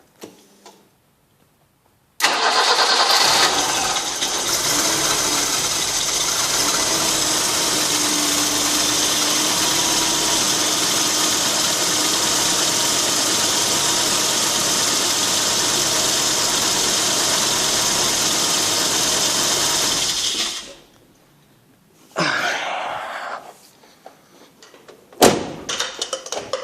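1986 BMW E30 engine cranked and started about two seconds in, then running with a loud, high whistle from the alternator belt, which is damp from washing the engine; the engine is switched off after about eighteen seconds.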